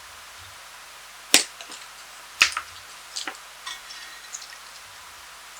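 Plastic keyboard keycaps being handled and set down: three sharp clicks about a second apart, the first the loudest, with a few fainter ticks between.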